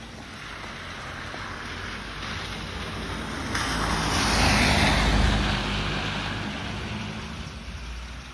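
A minivan driving past on a wet, slushy road, its tyres hissing through the water. The sound swells to its loudest about four to five seconds in, then fades away.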